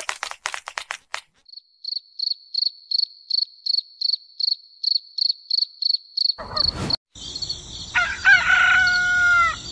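Cricket chirping, short high chirps repeated evenly about three times a second, after a few sharp crackles at the start. Near the end a bird calls with several falling notes over a high steady ringing.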